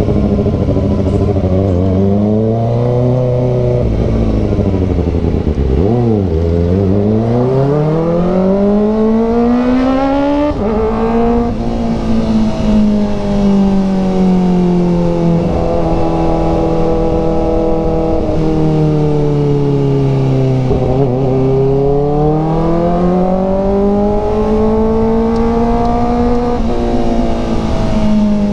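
Kawasaki ZX-4RR's 399 cc inline-four engine under way. The engine note dips about six seconds in, then climbs steadily for about four seconds to a gear change, and after that holds a cruising pitch that sags and swells slowly.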